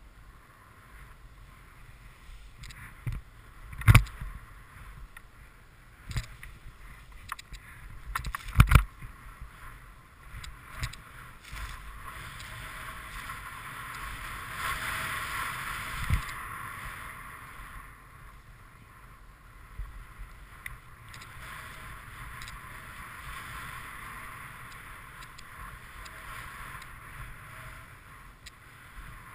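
Snowboard sliding and carving through powder snow: a continuous rushing hiss that swells around the middle, with a few sharp knocks, the loudest about four and nine seconds in.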